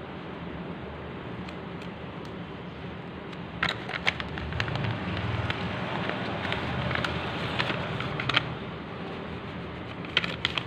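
Paper rustling and crackling as hands fold and press a sheet flat, thickest in the middle and again briefly near the end, over a steady background hum.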